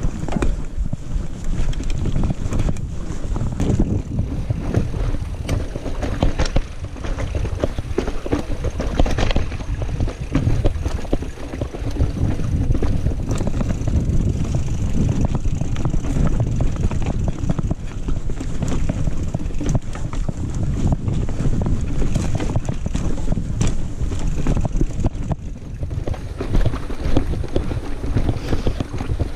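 Mountain bike, a 2018 Giant Reign 2, riding fast over rough trail, with constant rattling and short knocks from the bike as it crosses rocks and roots. Heavy wind rumble on the chest-mounted GoPro's microphone runs under it.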